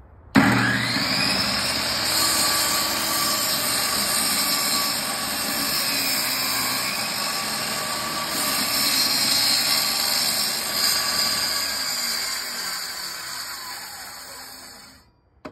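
Portable table saw switched on, its motor spinning up to a steady whine and running while an old 4x4 is ripped on the blade; the pitch sags under load partway through. Near the end it winds down and stops.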